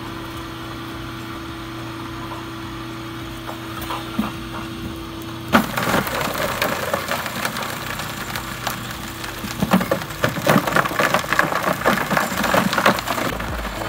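Homemade bucket shredder driven by a washing-machine motor, running with a steady hum. About five and a half seconds in there is a knock, and then a dense rattling crackle as manure is chopped by the spinning blade, growing louder and choppier in the last few seconds.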